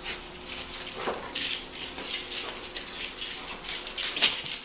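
Young basset hound playing with a plush toy on a tile floor: a steady run of quick clicks and scuffles, with small dog noises mixed in.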